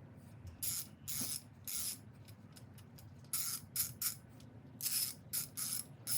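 Half-inch ratchet clicking in short bursts as it is swung back and forth, the pawl ratcheting about ten times in uneven groups.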